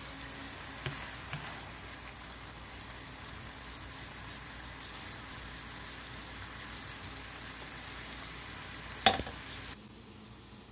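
Green beans sizzling and frying in a hot pan as they are stir-fried, with a couple of light knocks and one sharp knock near the end. The sizzling cuts off shortly after.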